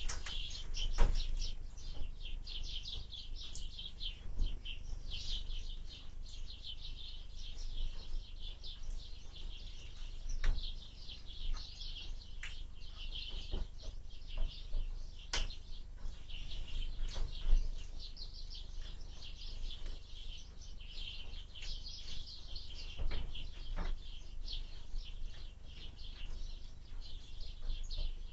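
Small birds at a window feeder chirping busily and continuously, with a sharp knock every few seconds. A low rumble of wind runs underneath.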